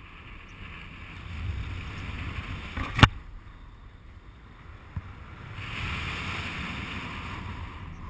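Wind rushing over the microphone of a paraglider's action camera in flight, swelling twice, with one sharp, loud knock about three seconds in and a smaller tap near five seconds.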